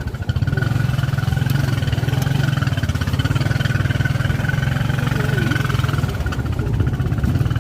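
A vehicle engine running steadily and close by, with a rapid even throb and a faint steady whine above it.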